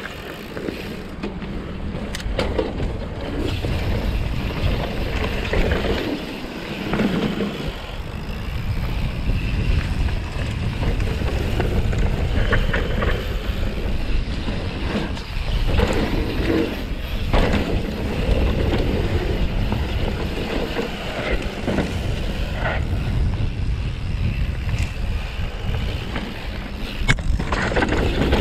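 Mountain bike descending a dirt singletrack trail: a continuous rumble of tyres rolling over dirt and roots, with wind buffeting the camera microphone, broken by sharp clattering knocks from the bike over bumps.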